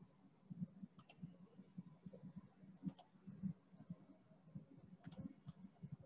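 Faint computer mouse clicks, about four of them at irregular intervals of one to two seconds, some heard as quick double clicks, as ink annotations are erased from a slideshow. A faint low background rumble lies underneath.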